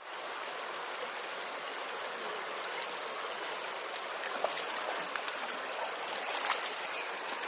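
Shallow river flowing steadily over stones. From about four and a half seconds in come a few short, sharp splashes as a hooked rainbow trout thrashes at the surface near the bank.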